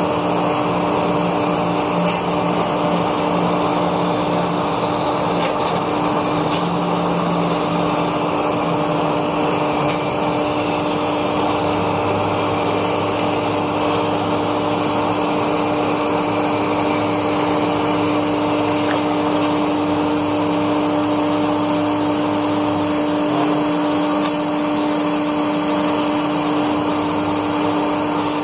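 Laguna SmartShop II CNC router running while cutting through foam: a steady loud machine noise with a constant whine. A lower hum comes in about halfway through and drops away near the end.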